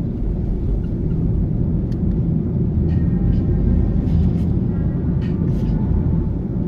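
Steady low rumble of a car's engine and tyres on the road, heard from inside the moving car, with a few faint ticks.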